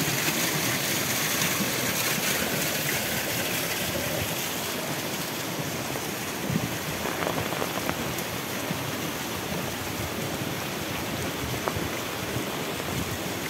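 Heavy rain falling steadily, an even wash of noise with scattered single drops ticking louder.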